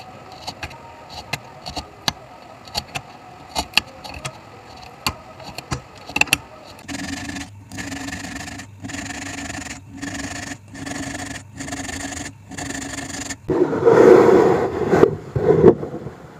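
Hand saw cutting across the end of a wooden board in about eight even back-and-forth strokes, the blade ringing slightly, after a few seconds of scattered light taps and clicks. Near the end a louder, rougher scrape of wood comes, followed by a few knocks.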